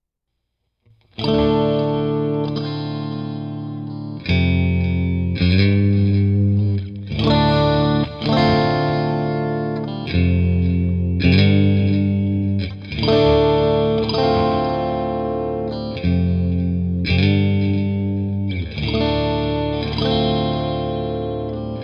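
Fender Mexican-made Stratocaster electric guitar through a Johnson Marquis amp, close-miked at the speaker cone with a TechZone Audio Stellar X2 condenser mic. It starts about a second in: chords struck and left ringing, a new chord every second or two.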